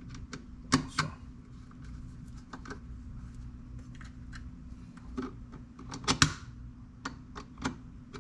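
Hand tools clicking and tapping on metal as an Allen wrench and a flat screwdriver tighten a screw and barrel fastener: scattered sharp clicks, with the loudest pairs about a second in and about six seconds in. A low steady hum runs beneath.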